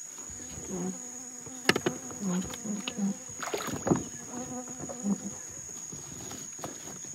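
A flying insect buzzing close to the microphone, coming and going in short swells, over a steady high-pitched insect drone. There are a few sharp knocks and rustles near the middle.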